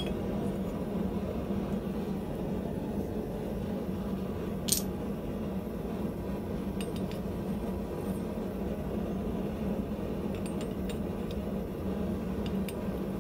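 Light metallic clinks and taps of steel guillotine-tool parts being handled and set in place, steel against steel, with one sharper clink about five seconds in and a few faint ticks later, over a steady low hum.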